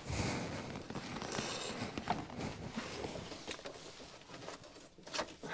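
Faint rustling and a few light clicks of cables being handled where they come out through the bottom entry of a plastic distribution board enclosure.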